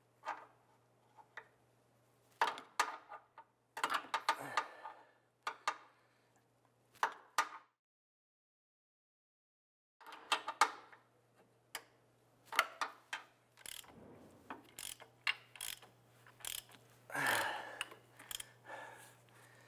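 Ratchet turning the crankshaft bolt through an 18 mm socket, its pawl clicking in short runs with metal clinks between strokes, as a stretch-fit serpentine belt is walked onto the crank pulley with an installation tool. The clicks come in clusters, with a brief dead gap near the middle and a longer scrape toward the end.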